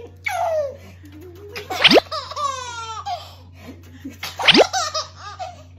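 A baby laughing and squealing in bursts. Twice, about two and a half seconds apart, a quick upward-sweeping sound comes just before a burst of laughter.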